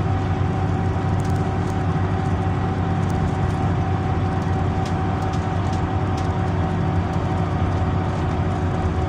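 Inside a Scania Citywide LE 12M city bus on the move: a steady low engine and road rumble with a constant whine running over it, and a few faint ticks and rattles from the cabin.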